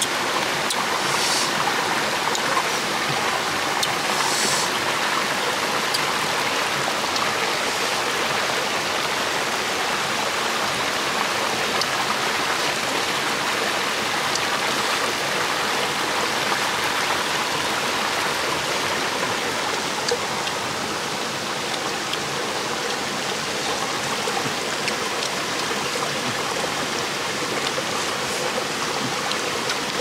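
Steady rushing of flowing water from a stream or waterfall, with two brief higher rustles about a second in and about four seconds in.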